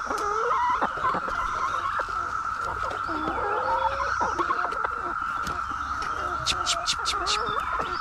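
Hens clucking in short, low calls over the steady high drone of a Brood X periodical cicada chorus. A quick run of sharp clicks comes near the end.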